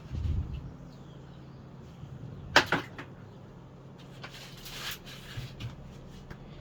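Handling noises from disconnecting a washing machine's water inlet hose and valve: a low thump at the start, two sharp clicks about two and a half seconds in, and a brief scrape near five seconds.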